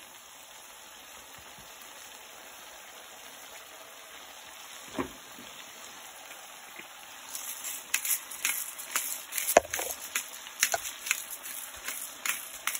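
Cheese sauce bubbling and sizzling in a frying pan as it boils down: a steady hiss at first, then irregular crackling pops from a little past halfway. There is a single knock about five seconds in.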